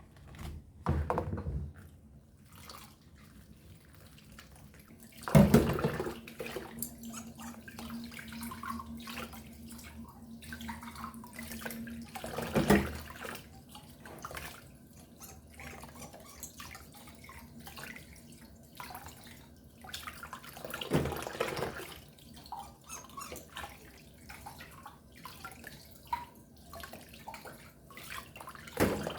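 Water running from a tap for about seven seconds with a steady low hum, then turned off, amid small knocks and clicks and further splashes later on.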